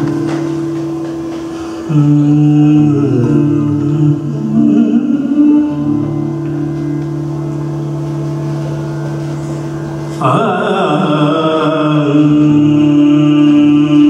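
Opening of a raga performance in Puriya Dhanashree: a steady low drone holding two notes an octave apart. A louder, higher melodic line that slides between notes joins about ten seconds in.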